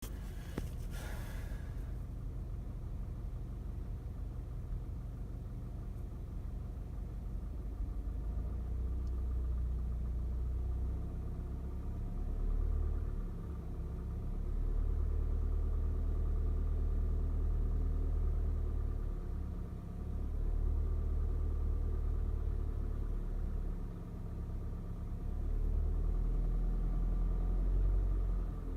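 Cold Volkswagen-group 2.0 TSI (CHHB) turbocharged four-cylinder petrol engine running, with a knock it makes when cold. Its low rumble rises and falls several times.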